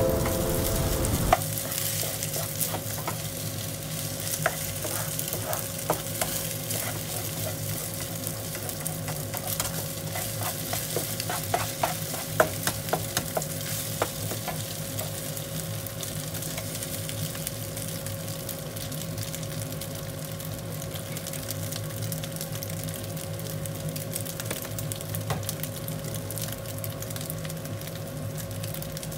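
Egg fried rice sizzling in a nonstick frying pan while a spatula stirs and scrapes it, with many quick clicks and taps of the spatula on the pan that thin out after about halfway. A steady hum runs underneath.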